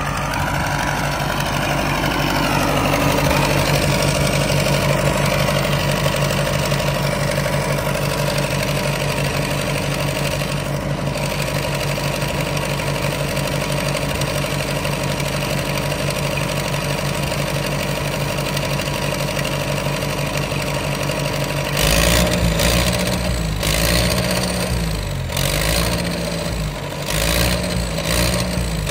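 Cat 955 track loader being started: a steady mechanical running sound for most of the time, then for the last several seconds an uneven, surging throb of heavy low pulses as the engine fires.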